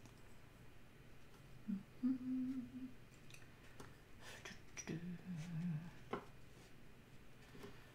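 A person humming two short notes, about two seconds in and about five seconds in, the second lower and wavering, with a few faint taps of a paintbrush on watercolour paper between them.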